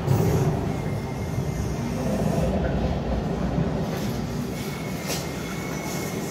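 Steady low rumbling background noise of a large indoor hall, with a few faint clicks and a faint thin high tone in places.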